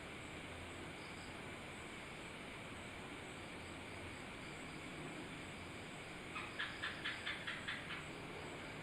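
An animal's call: a quick run of about eight short chirps over under two seconds near the end, fading as it goes, over a steady background hiss.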